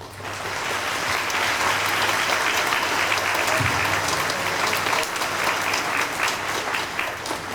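Audience applauding after a poem recital, starting all at once and tapering off near the end.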